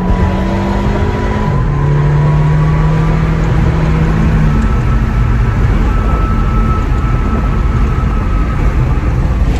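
Interior driving noise of a 2016 Volkswagen Passat 1.8T: steady rush of road and wind noise with the engine note droning underneath. The engine note steps down in pitch about a second and a half in and fades after about four and a half seconds, leaving the road and wind noise.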